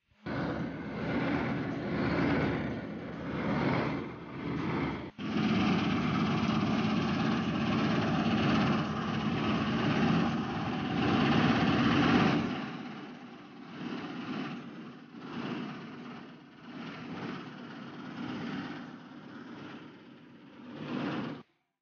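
Dasmesh 9100 combine harvester running while cutting wheat: steady engine and machinery noise. It breaks off briefly about five seconds in and drops in level about twelve seconds in.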